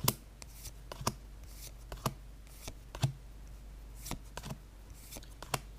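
Magic: The Gathering cards from a freshly opened booster pack being flicked through one by one, each card giving a short crisp snap of card stock, roughly every half second to a second.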